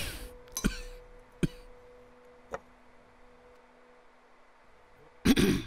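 Quiet dinner-table sounds: a few light clicks of cutlery and dishes, mostly in the first two seconds, over a faint steady tone that stops near the end. A short rush of noise comes just before the end.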